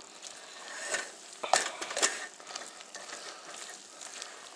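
A spatula stirring thick macaroni and cheese with chicken in a stainless steel pot: a soft steady scraping, with a few sharp knocks against the pot about one and a half and two seconds in.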